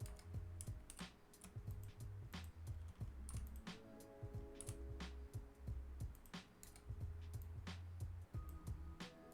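Computer keyboard keys clicking irregularly, about one or two presses a second, over quiet background music with held notes and a low bass line.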